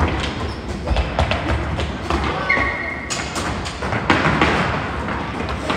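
Roller skates rolling on a wooden floor during rink hockey play, under a string of sharp clacks and knocks from sticks, ball and boards.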